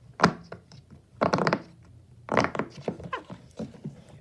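Silicone push-pop fidget, a giant ABC poppet, having its bubbles pushed through by finger: a string of short, sharp pops, with a quick run of several about a second in and another loud one past the middle.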